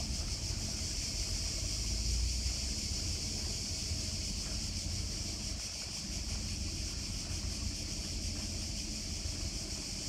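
Cicadas singing in chorus: a continuous, steady high-pitched buzz, over a low rumble of wind on the microphone.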